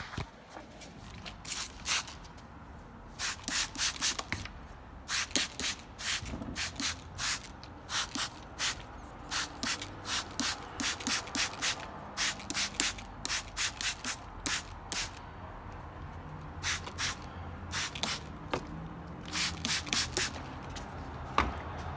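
Trigger spray bottle squirted again and again: short hissing sprays in quick runs of two or three a second, the way a tyre is wetted with soapy water to check where it leaks around screws in the tread.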